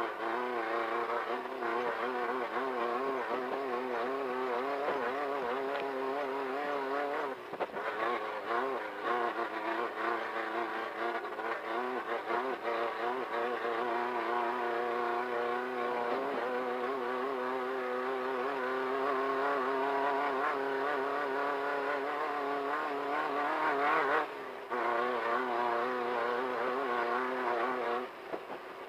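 Off-road race car's engine running hard at speed, its pitch wavering up and down with the throttle over rough ground. It dips briefly about a quarter of the way in and again near the end.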